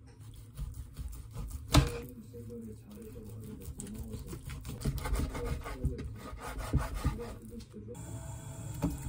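Kitchen knife sawing through a slab of raw pork front leg on a wooden cutting board: repeated back-and-forth strokes with the blade knocking against the board, and one sharp knock a little under two seconds in.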